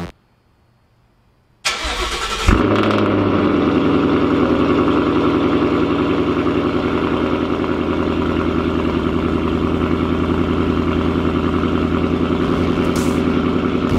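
Cold start of a 2017 Mustang GT's 5.0 Coyote V8 through a Borla ATAK exhaust. After a second and a half of near silence the starter cranks briefly, the engine catches with a loud flare about two and a half seconds in, then settles into a steady, evenly pulsing cold idle.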